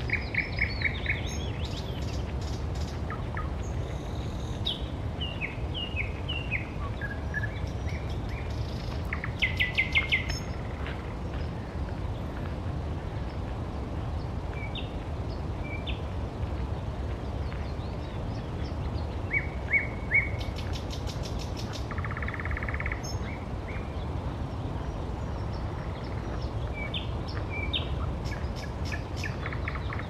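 Songbirds singing in spring: a scattering of short chirps, whistled notes and quick trills from several phrases, the loudest trills about ten and twenty seconds in. A steady low rumble runs underneath.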